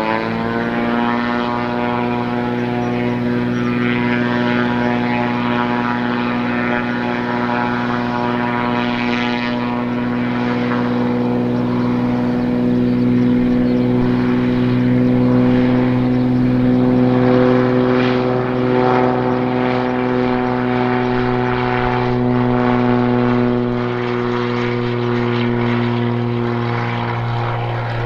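Cessna T206H Turbo Stationair amphibian's turbocharged six-cylinder engine and three-blade propeller going up to full takeoff power, rising in pitch in the first moment, then holding a steady drone through the takeoff roll and liftoff, growing somewhat louder midway.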